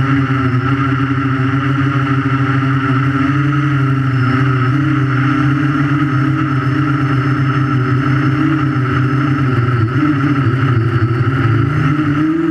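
Invertix 3D quadcopter's electric motors and propellers running steadily as it hovers, heard from the camera strapped to the drone, a layered whine and drone whose pitch wavers slightly as the motors adjust.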